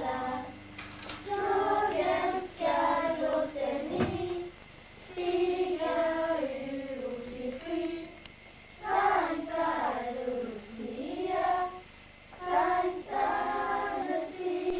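A group of children singing a Lucia song together in a Lucia procession, phrase by phrase with short breaths between. A brief low bump about four seconds in.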